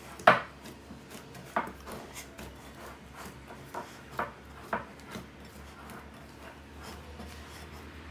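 A hand kneading soft yeast dough in a glass bowl: rubbing and squishing, with irregular sharp taps, the loudest about a quarter second in, several more over the next five seconds, then only quiet rubbing.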